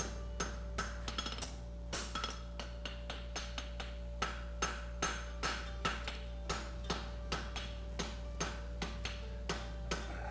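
Farrier's hand hammer striking a red-hot steel horseshoe on the horn of an anvil in a steady run of blows, about two to three a second, bending and sweeping the branch of a front side bone shoe around the horn.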